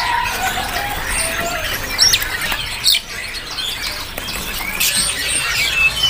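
Caged songbirds chirping and squawking in short, scattered calls, with a few sharp clicks and wing flutters in the cage.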